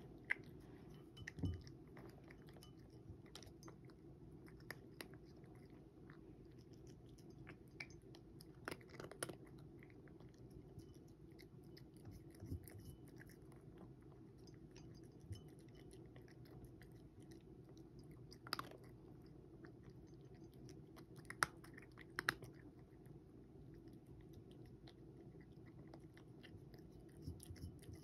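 Cat eating from a ceramic bowl: quiet chewing with scattered short clicks, the sharpest few about two-thirds of the way through.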